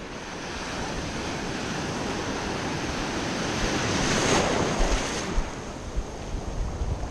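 Ocean surf: a breaking wave swells to a crash over the wader about four seconds in, then dies back to foaming water washing around, with low thumps near the end.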